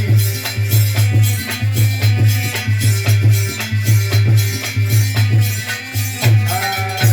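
Instrumental folk music interlude: a quick, even drum and shaker beat over a steady pulsing low note, with no singing.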